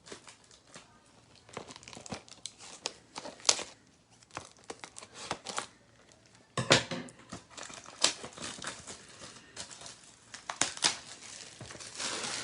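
Plastic wrapping on a trading card hobby box being torn open and crumpled: irregular crinkling and crackling, with a few louder rips.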